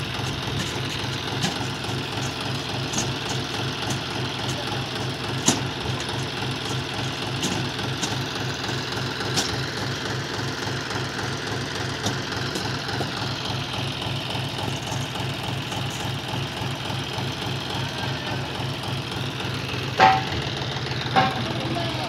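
Diesel engine idling with a steady, even chugging pulse. A few sharp knocks cut in over it, the loudest two near the end.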